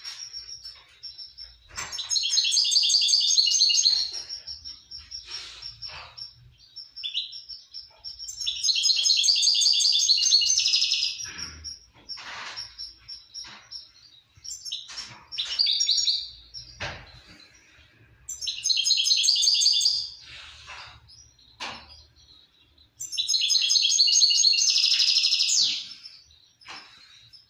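Small caged songbird singing: five long phrases of rapid, high twittering notes, each lasting two to three seconds, with scattered single call notes between them.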